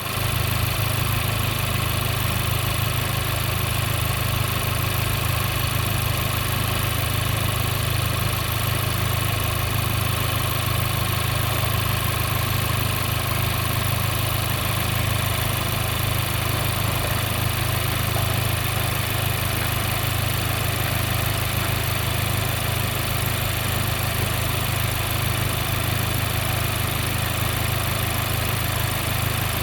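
Honda Civic Type R FK8's 2.0-litre turbocharged four-cylinder engine idling steadily.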